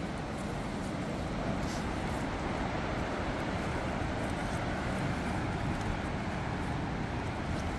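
Steady rushing outdoor noise, even in level throughout, with a few faint crackles about two seconds in and near the end.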